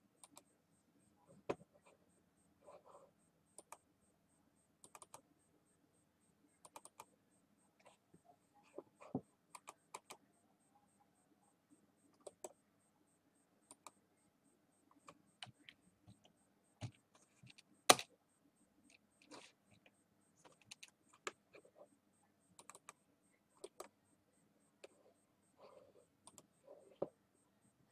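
Faint, irregular clicks and key taps at a computer keyboard and mouse, one sharper click about eighteen seconds in, over a faint steady hum.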